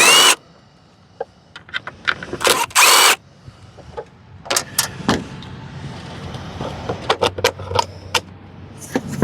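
Mechanical work on a riding mower's Kohler Courage engine: two short loud rasping bursts, one right at the start and one about three seconds in, then a run of scattered clicks and knocks from tools and metal parts being handled.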